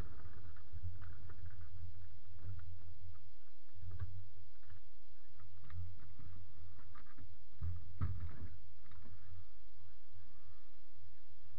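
Low steady rumble with scattered light knocks and clicks, picked up by a camera mounted on a vintage race car waiting in line.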